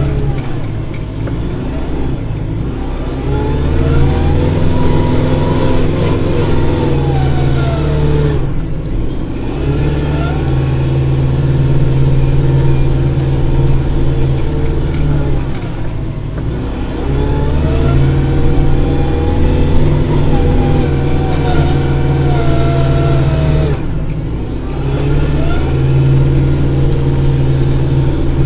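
Kubota diesel tractor engine running under changing load. Its pitch swells up and falls back in long cycles of about eight seconds, with a short drop in level between each cycle.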